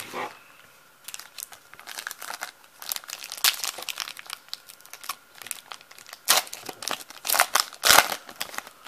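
Foil wrapper of a baseball card pack crinkling and tearing as it is ripped open and the cards are slid out. The crackling starts about a second in and is loudest in a few bursts near the end.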